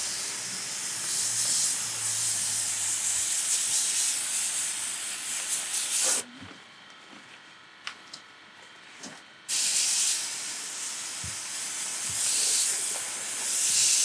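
High-pressure washer lance spraying strong alkaline cleaner at about 2 MPa onto an air conditioner's aluminium heat-exchanger fins: a steady hiss of spray. The spray stops about six seconds in for some three seconds, with a few faint clicks, then starts again.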